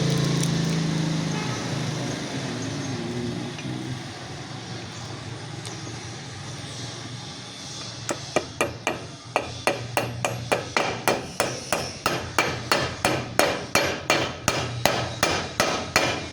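Hammer blows on metal during a wheel bearing replacement, starting about halfway through and settling into a steady run of about three strikes a second, each with a short metallic ring. A steady low hum fades away over the first few seconds.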